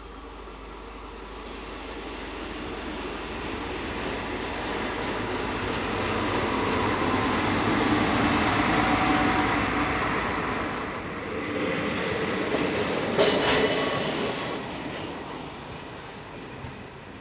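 Yellow rail maintenance vehicle passing on the track: engine and wheel noise growing louder to a peak, then a brief, sharp, high-pitched wheel squeal about thirteen seconds in before the noise fades.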